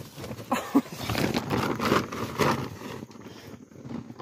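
Plastic tarp rustling and crinkling in irregular bursts, with a few short sharp crackles.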